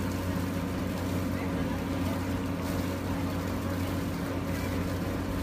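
Motorboat engine running steadily, an even low hum, with a hiss of water and wind over it.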